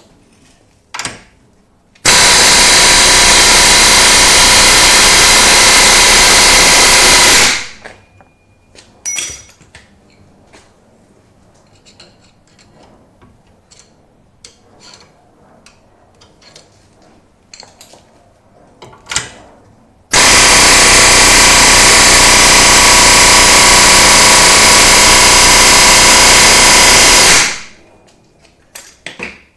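Power tool run in two long, loud bursts of about five seconds each, with small clicks and knocks between them, while a seized front lower ball joint is being worked loose from a Suzuki Swift's suspension.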